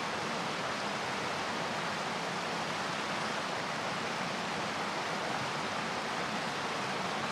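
Steady, even rushing of running water, unbroken and unchanging.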